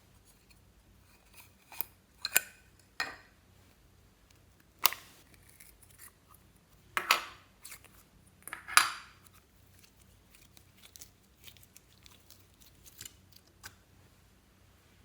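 A series of sharp, crisp snips and clicks, about six loud ones between roughly two and nine seconds in, then scattered faint ticks, from hands working with makeup and slime.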